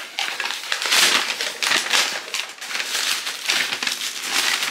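White paper wrapping crinkling and crackling as it is handled and pulled open to unwrap a package, in a series of irregular loud rustles.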